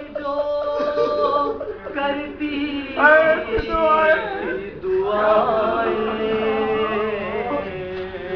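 A man's voice chanting an Urdu Salam, a melodic devotional recitation for Muharram, with no instruments, in phrases of long held, wavering notes.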